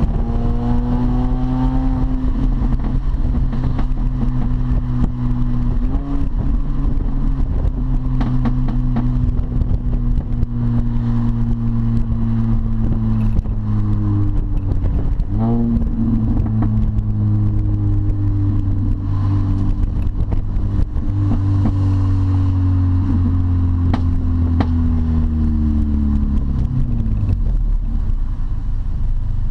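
R53 Mini Cooper S supercharged four-cylinder engine with a straight-piped exhaust, heard from inside the cabin while driving in traffic. The engine note holds a steady pitch for long stretches, with a few quick dips and rises as the driver shifts gears, and it drops away near the end.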